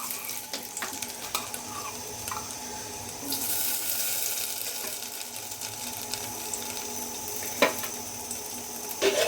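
Kitchen sounds: a steady hiss that grows louder for a couple of seconds midway, with a few light clicks of utensils and one sharp clink a little past halfway.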